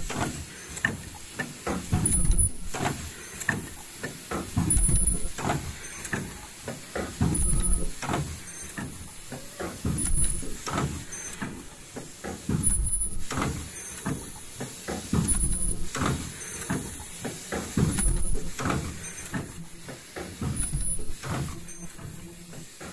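Automatic folding-mask production machine running in a steady cycle: repeated mechanical and pneumatic strokes with air hisses, and a short high-pitched whine that comes back every second or so.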